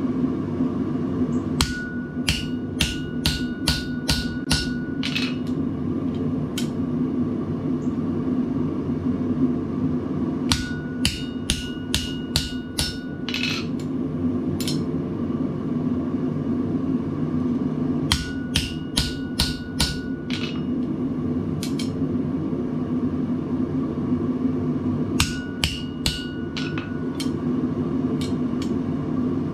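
Blacksmith's hand hammer driving a punch through hot steel on an anvil, piercing a hole. The blows come in four runs of quick strikes, about three a second, each run ringing with a held metallic tone. A steady low rumble runs underneath.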